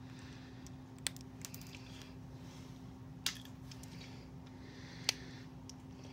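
A few sharp clicks of wire cutters snipping a plastic doll neck peg shorter, spread a second or two apart, the last, about five seconds in, the loudest.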